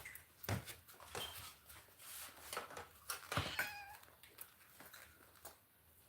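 Brief cat meow about three and a half seconds in, among scattered light clicks and knocks.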